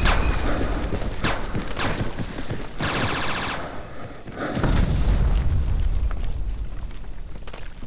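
Synthesized sci-fi battle sound effects: sharp cracks of gunfire and a rapid burst of shots about three seconds in, over deep booming rumbles that swell at the start and again near five seconds.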